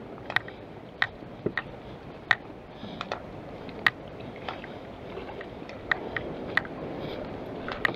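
Small boat under way on the water: a steady wash of water with irregular sharp clicks and knocks, a few each second.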